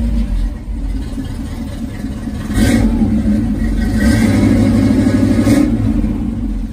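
Chevy wrecker's engine running through a new single exhaust with a Thrush muffler, getting louder about two and a half seconds in as it is revved and dropping back near the end. It won't settle to a smooth idle, which the owner puts down to a faulty carburetor.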